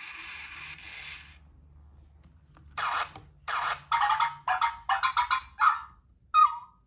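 Hasbro I-Dog robot dog toy's speaker playing a hissy electronic sound that cuts off about a second and a half in. This is followed by a quick run of about nine short electronic yips, the last one ending in a falling tone.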